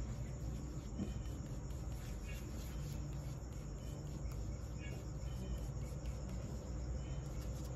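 Crickets chirping in short, repeated chirps every second or two over a steady low hum.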